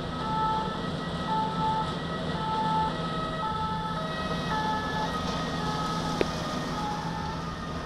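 Ambulance siren sounding a sequence of short steady tones that jump between pitches, over a steady low engine drone. A single sharp click a little after six seconds.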